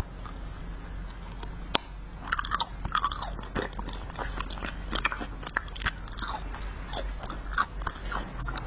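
Close-miked chewing of wax-bottle candy: a single sharp click a little under two seconds in, then continuous crackly biting and chewing of the wax.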